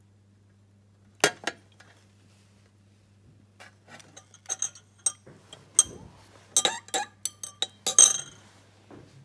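Glass beaker clinking and tapping as it is handled and stirred with a metal spatula and a glass thermometer, while agar is dissolved in the hot water. Two sharp clinks come about a second in, then a quick run of clinks and taps that is loudest near the end.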